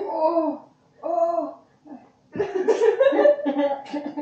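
Girls' voices laughing and exclaiming: two short rising-and-falling calls, then a longer run of laughter from about halfway through.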